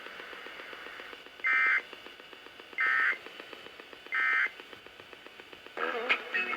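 Emergency Alert System end-of-message data tones: three short, identical bursts of buzzing digital tones a little over a second apart, the signal that the severe thunderstorm warning has ended.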